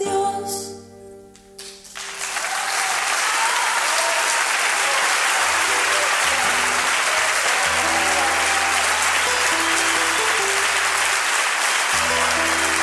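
Last notes of an acoustic guitar ringing out, then audience applause starting about two seconds in and running on steadily. Soft held low instrument notes sound under the applause.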